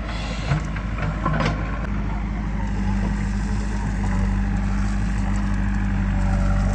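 Heavy diesel engine running steadily, with a single knock about half a second in.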